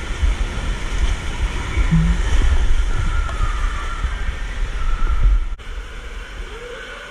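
Water rushing and a rider sliding down an enclosed water-slide tube and splashing out into the runout lane, with heavy rumbling buffeting on the microphone. About five and a half seconds in it cuts off suddenly to a quieter, steady indoor hum.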